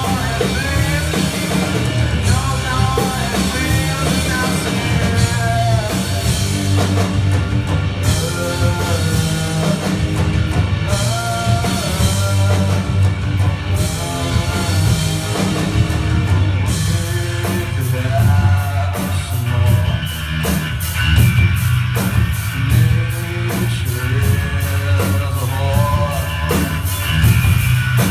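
Live rock band playing a grunge cover: electric guitars and drum kit with a singer's voice over them. About halfway through, the drums take up a fast, even beat on the cymbals.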